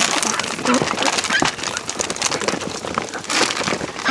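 Ducks moving about: a busy run of rustles and clicks with scattered short calls.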